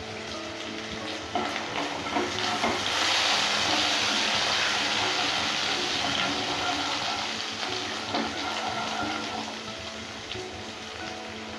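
Spice paste of green chillies and turmeric frying in hot mustard oil in a non-stick pan, sizzling as it is stirred with a wooden spatula. The sizzle swells about a second in as the spatula starts working the paste, with a few knocks of the spatula on the pan, and dies down near the end.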